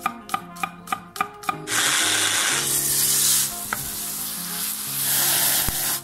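A knife chopping garlic on a wooden cutting board, about six quick chops, then food sizzling loudly as it is stir-fried in a frying pan.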